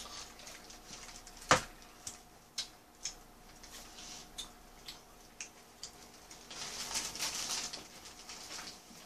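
Handling and eating a hamburger in its paper wrapper: scattered small clicks and taps, one sharp click about one and a half seconds in, and a papery rustle of the wrapper around seven seconds in, over a faint steady hum.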